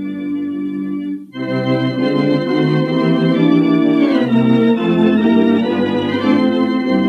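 Four-manual, 21-rank Wurlitzer theatre organ playing a popular-song medley in sustained full chords. The sound breaks off briefly about a second in, then comes back with fuller chords over a moving bass line.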